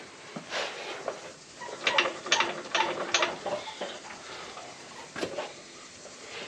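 Polaris RZR side-by-side front wheel and suspension being rocked by hand to check for play, giving a run of clicks, knocks and creaks from about half a second to three seconds in, with a couple more later. With new knuckle bushings fitted, the wheel has no play of its own and the whole machine shifts as it is wiggled.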